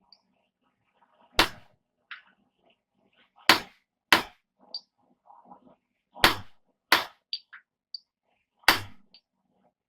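Hand hammer striking hot steel on an anvil, driving a piece of round bar in to press depressions into a fullered piece. Six heavy blows at uneven intervals, with light ringing taps between them.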